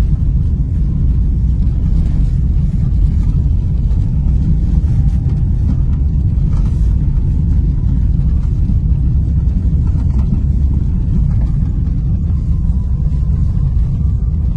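Steady low rumble of a car on the move, heard from inside the cabin: engine and tyre noise on a snow-packed road.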